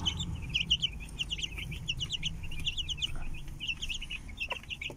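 A brood of young chicks peeping, many short high calls in quick succession, with a steady low rumble underneath.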